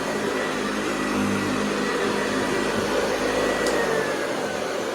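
Hoover Convertible 704 upright vacuum cleaner running steadily, its motor giving a continuous whine over a rushing air noise. The whine dips slightly in pitch near the end.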